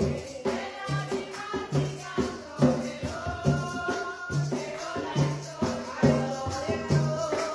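Bullerengue music: hand drums beat a steady pulse, a low stroke a little under once a second, under a shaker and a singing voice.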